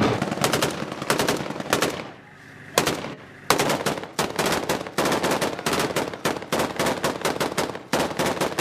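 Rapid automatic gunfire in bursts of many shots. It eases off about two seconds in, one loud shot cracks out, then the firing resumes and runs on steadily.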